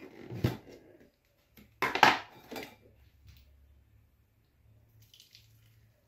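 Blender jar and lid clattering as they are handled and set down on the counter: a few sharp knocks in the first three seconds, the loudest about two seconds in, then only faint handling sounds.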